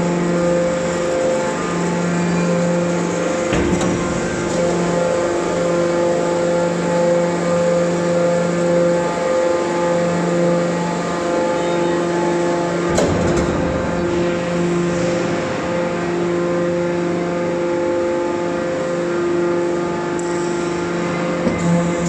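Hydraulic metal scrap baler running, a steady multi-pitched hum from its hydraulic power unit. There is a short clank about three and a half seconds in and another about thirteen seconds in.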